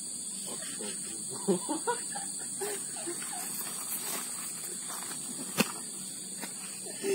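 Steady high-pitched insect drone, with a few short, faint pitched calls about one to three seconds in and a single sharp click near the end.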